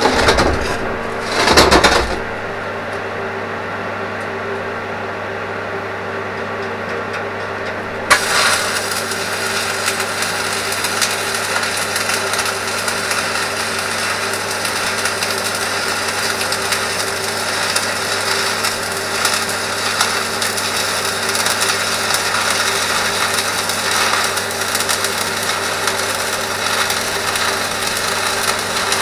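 A welding machine hums steadily, with two short loud knocks in the first couple of seconds. About eight seconds in, a welding arc strikes, and the continuous crackle and hiss of stick (MMA) welding carries on from there.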